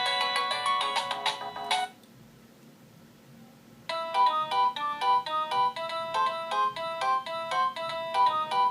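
Nokia 6230i polyphonic ringtones: one ends about two seconds in, and after a short pause of near silence another starts, a quick, repeating run of bright synthesized notes.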